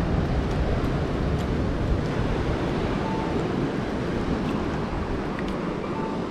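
Ocean surf washing onto the beach and rocks, with wind buffeting the microphone as a rough low rumble.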